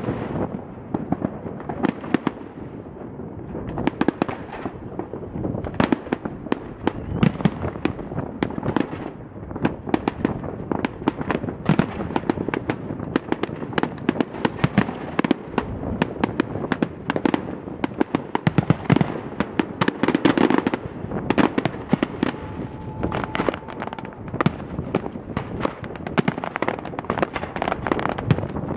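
Aerial firework shells bursting in quick succession: a dense run of bangs and crackles, several a second, over a low rumble.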